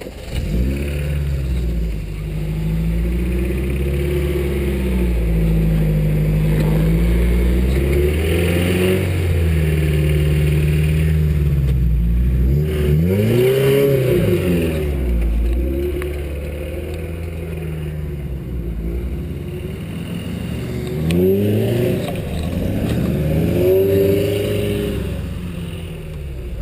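Engine of a solid-axle-swapped Toyota 4Runner crawling over rocks and tires, held at low revs and then revved up and back down several times, most sharply about halfway through and twice near the end.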